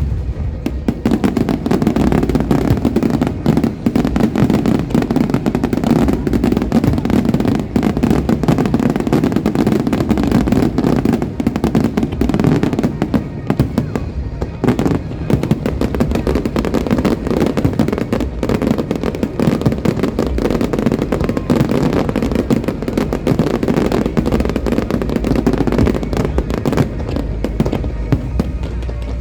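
Fireworks going off in rapid, unbroken succession, a dense barrage of bangs and crackles with show music playing underneath.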